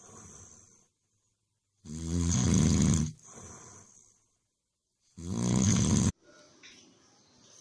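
A person snoring: two long, loud snores about three seconds apart, each lasting about a second.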